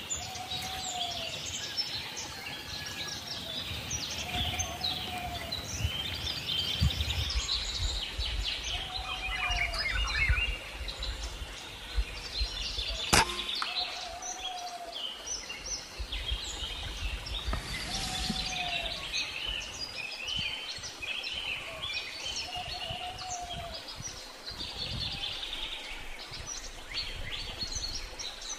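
Wild birds chirping and singing, with a low, arched call repeated every few seconds. One sharp crack cuts through about halfway through.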